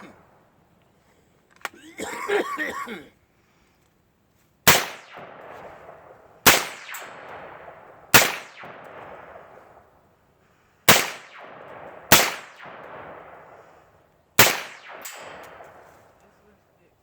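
Six single rifle shots, one to two and a half seconds apart, each followed by a long rolling echo.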